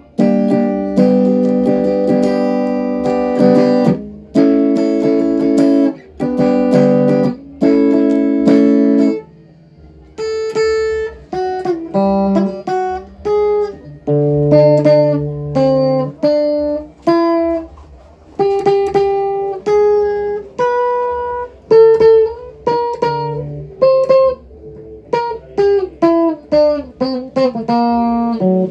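Stratocaster-style electric guitar playing a few held chords, then a melody of single picked notes that comes faster near the end.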